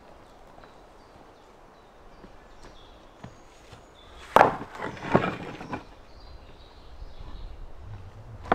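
Loose pieces dropped into a wheelbarrow. A loud clatter starts about four seconds in and lasts over a second, and a single sharp knock comes near the end.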